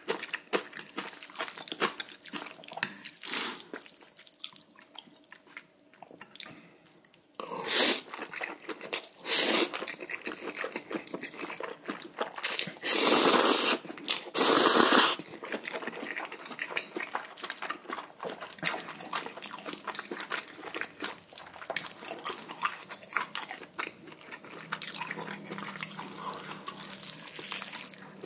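Close-miked, wet chewing of spicy chicken pieces, with small clicks and smacks throughout. About halfway through come a few loud slurps, the two longest being mouthfuls of spicy bibim-myeon noodles.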